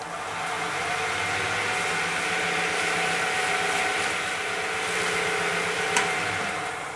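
Small wood lathe running steadily with a motor whine, while a paper towel held against the spinning wooden handle rubs on it to apply polish. A sharp tick about six seconds in, and near the end the lathe begins to run down.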